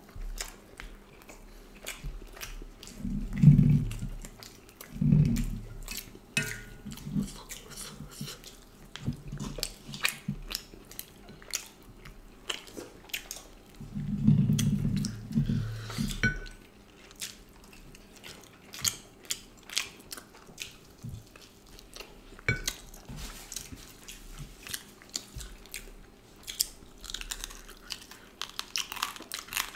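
Close-miked chewing and biting of people eating duck curry and rice-flour roti with their hands, with many wet mouth clicks and smacks. A few louder low sounds come from the eaters around three to five seconds in and again about halfway through.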